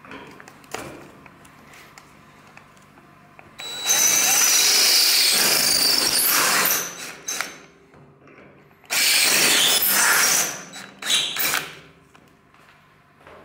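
DeWalt 20V cordless right-angle drill drilling holes through the frame rail for the pedal box mount plate. The motor runs with a high whine in two long runs, the first about three seconds, then in a couple of short bursts near the end.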